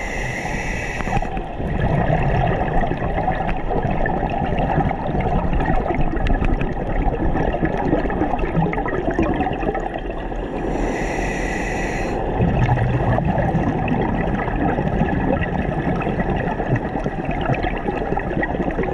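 Scuba regulator breathing underwater: a hissing inhalation of about a second at the start and again about eleven seconds in, each followed by a long stretch of gurgling exhaled bubbles.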